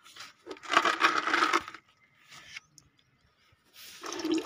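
Old engine oil draining from the sump of an Ajax Fiori Argo 2000 concrete mixer into a plastic drum, splashing and gurgling near the end. A short noisy burst about a second in. The oil is thick and black, long overdue for changing.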